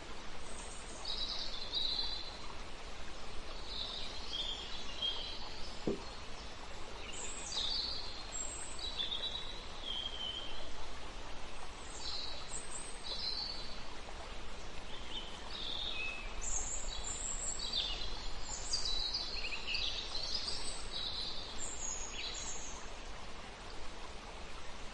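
Small birds chirping and calling on and off over a steady background hiss, the chirps coming more often in the second half.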